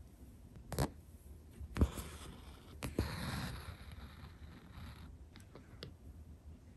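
Embroidery thread being drawn through fabric stretched in a hoop: a soft, hissing draw of the thread lasting a couple of seconds, with a few sharp little clicks about one, two and three seconds in.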